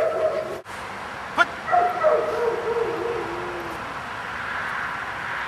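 German shepherd whining and yipping in high-pitched tones: a short whine at the start, a sharp yip about a second and a half in, then a longer whine of about two seconds that drops in pitch as it ends.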